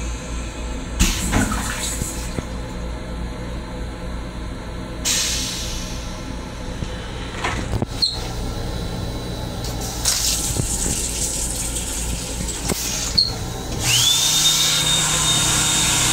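Railcar toilet flush cycle in an M7 commuter car's restroom: several hissing rushes of water and air a few seconds apart, with a sharp click in between. Near the end a motor starts up with a steady high whine, over the low rumble of the moving train.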